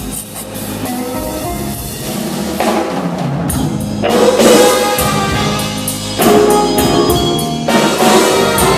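Live blues band playing, with the drum kit prominent; the band grows louder through the first half and stays loud.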